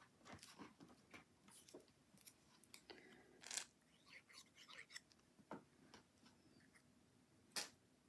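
Faint handling of cardstock pieces and a small glue bottle on a tabletop: soft paper rustles and light taps, with two sharper clicks about three and a half seconds in and near the end.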